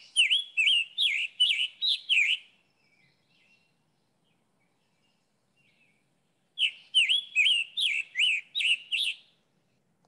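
Scarlet tanager singing: two bouts of quick, hoarse, robin-like phrases, like a robin with a sore throat. The first bout runs over the first two and a half seconds and the second starts about six and a half seconds in.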